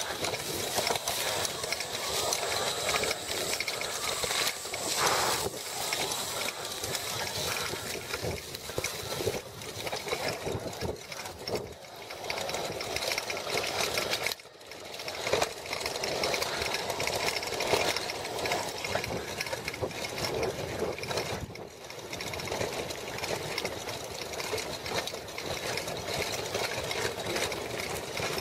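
Electric mountain bike rattling and clattering over rough dirt trail, picked up by a camera on the handlebars: a dense, continuous jangle of the steel front fork, frame and loose cables, with a faint steady high whine behind it. It drops off briefly about halfway through, then resumes.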